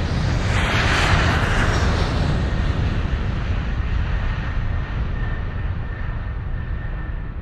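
Logo-intro sound effect: a deep rumble with a rushing whoosh that swells about a second in, then slowly fades away.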